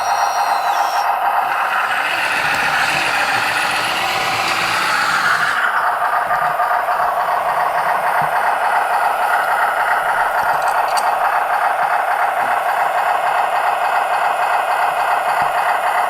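1/12-scale RC D3 bulldozer running: a steady whirring rattle of its drive and tracks, which eases slightly about five and a half seconds in.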